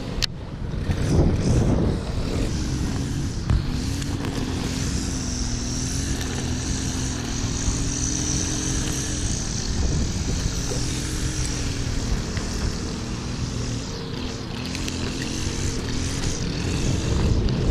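Wind buffeting the action camera's microphone, with a steady engine drone underneath whose pitch wavers slightly.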